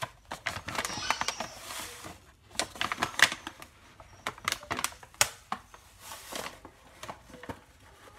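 A stiff paper pouch of sugar crinkling and crackling as a spoon digs into the sugar, an irregular run of sharp clicks and rustles that thins out after about three and a half seconds.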